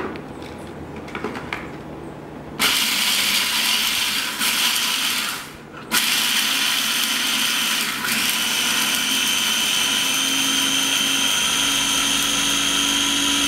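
Small electric food chopper chopping fresh green peppercorns with salt. After a few handling clicks, the motor starts about two and a half seconds in, stops briefly around five and a half seconds, then runs again with a steady high whine.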